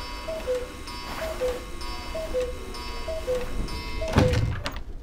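Cuckoo clock ticking in a two-note tick-tock, a higher tick then a lower tock, about once a second. About four seconds in, a louder knock as a metal lever door handle is pressed.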